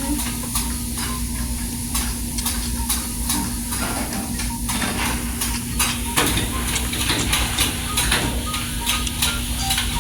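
Restaurant dining-room noise while a meal is eaten: a steady hiss and low hum with frequent small clicks and clinks of cutlery and dishes.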